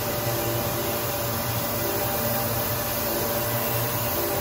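Ecopolymer KDM-360 dewatering screw press running under load, squeezing water out of wet plastic film: a steady machine hum over an even hiss.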